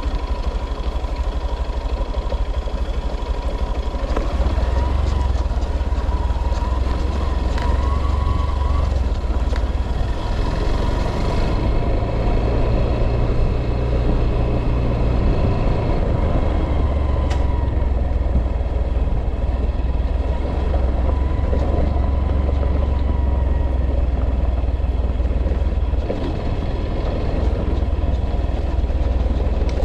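A motor vehicle running steadily, with a deep constant rumble and a faint steady whine.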